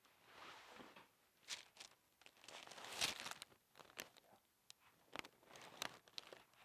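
Rustling and crinkling as a patient turns onto their side on a chiropractic treatment table, with scattered small clicks. There is a louder burst of rustling about three seconds in.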